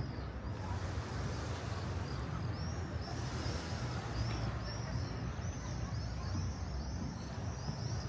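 Outdoor town ambience: a steady low rumble of distant traffic, with small birds chirping rapidly, a run of short high chirps several times a second starting a few seconds in.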